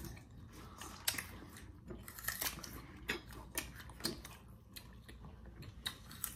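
Faint, irregular crisp crunches and clicks of several people biting and chewing small, hard green crab apples.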